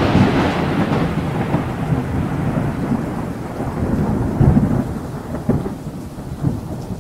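Small waves breaking and washing onto a sandy beach, heard as a loud, low rumbling noise that is strongest at the start and slowly eases.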